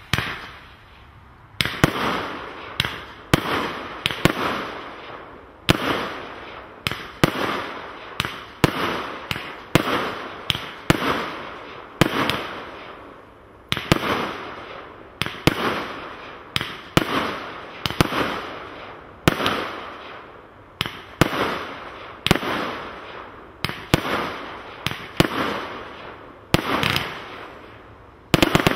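Hallmark Global Party multi-shot firework cake firing shot after shot, about two a second. Each shot is a sharp bang that trails off into a fading hiss, with one short pause about twelve seconds in.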